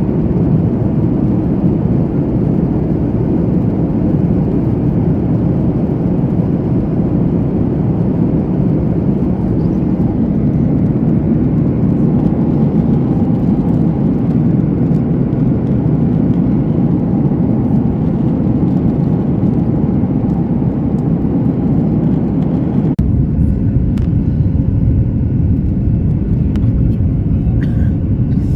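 Loud, steady rumble of an airliner cabin, the engines and airflow heard from inside the plane. About 23 seconds in, the deepest part of the rumble changes abruptly and a faint steady hum comes in.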